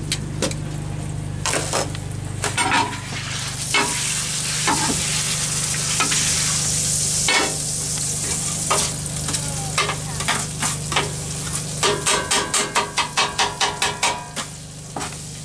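Chopped lamb sizzling on a steel flat-top griddle while a metal spatula scrapes and taps the steel. Near the end comes a quick run of sharp spatula taps, about six a second, chopping the meat on the griddle, over a steady low hum.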